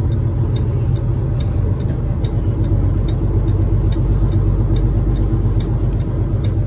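Semi truck's diesel engine running with a steady low rumble, heard from inside the cab, with a faint ticking recurring a few times a second.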